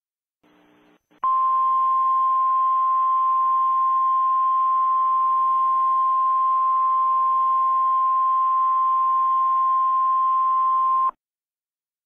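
NOAA Weather Radio 1050 Hz warning alarm tone: one steady, loud beep held for about ten seconds over a faint radio hiss. It starts about a second in and cuts off abruptly near the end. The tone signals that an alert message follows.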